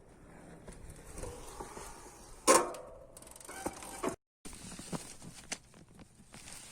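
Bicycle brakes squealing in short bursts amid clicks and rattles. The loudest squeal, about two and a half seconds in, starts with a sharp hit and holds for about half a second; a shorter one follows about a second later.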